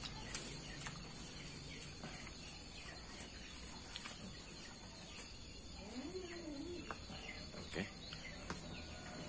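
Faint outdoor farm ambience: small birds chirping over a steady high-pitched background hiss, with a few light clicks and one faint wavering call about six seconds in.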